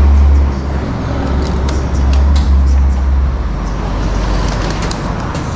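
Road traffic, with a heavy vehicle's low engine drone that drops away a little over three seconds in; faint light clicks over it.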